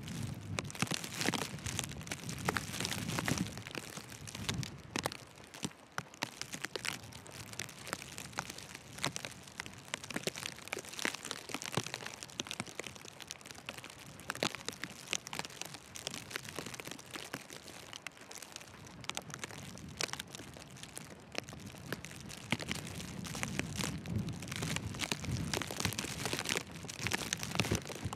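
Footsteps crunching through fresh, deep snow, with many small irregular crackles. Gusts of wind rumble on the microphone near the start and again near the end.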